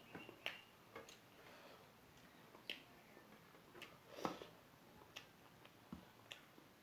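Faint eating sounds: about ten scattered small clicks and smacks of chewing and handling food, the loudest about four seconds in.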